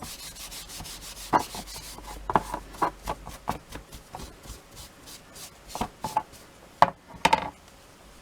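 Hand rubbing and scraping across a painted wooden breadboard to take paint off and distress it, in irregular strokes with occasional sharp knocks of the board against the table, the loudest near the end.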